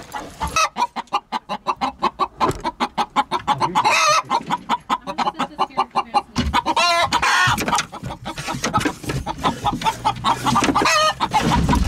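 Chickens clucking in a rapid, even string of short clucks, about four or five a second, with a longer, wavering squawk about six and a half seconds in.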